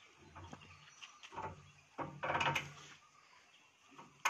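Rusty sluice-gate handwheel and spindle on a check dam being forced round with an iron bar: a few irregular metallic scrapes and knocks, loudest a little past two seconds in, with a sharp click near the end.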